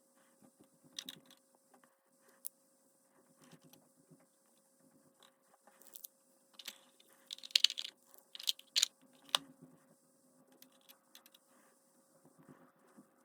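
Small plastic toy pieces and packaging from a Mini Brands blind ball being handled: scattered light clicks, taps and crinkles, with a louder cluster of crinkling and clicks about seven to nine seconds in.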